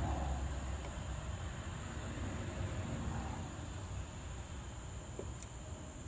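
Quiet steady background hum with a thin steady high-pitched tone, and a few faint light clicks as a brake pad is set into the rear brake caliper bracket.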